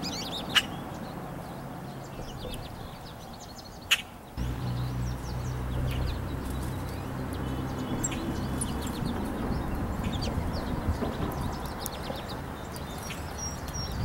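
Small songbirds chirping and twittering in many short, high calls. Two sharp clicks come near the start and at about four seconds in, and a low steady hum sets in just after the second click.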